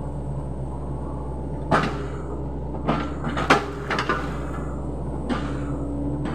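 Sany SY75C excavator engine running steadily, with a series of sharp knocks and cracks, about five over a few seconds and loudest about halfway, as the machine works through heavy timber.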